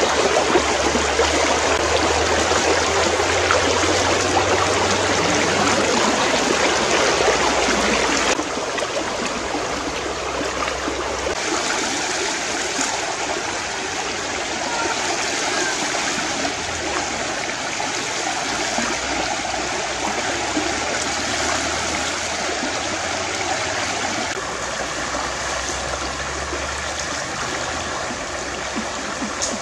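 Shallow stream running over rocks: a steady rush and babble of water, dropping a little in level about eight seconds in.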